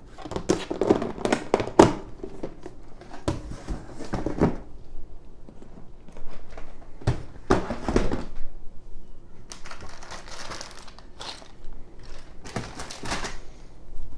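Plastic zip-lock bags crinkling and rustling as they are handled and packed into a plastic storage bin, with scattered knocks from the bin and box being handled, in several short bursts.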